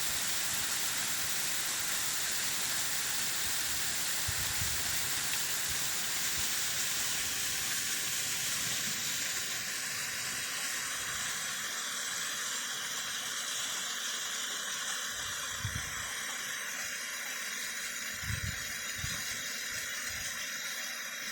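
Waterfall rushing in a steady hiss of falling water, with a few brief low bumps.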